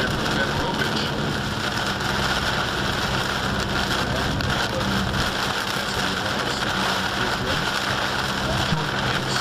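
Heavy storm rain pelting a moving car's windshield and body, heard from inside the car as a dense, steady hiss over a low hum from the car.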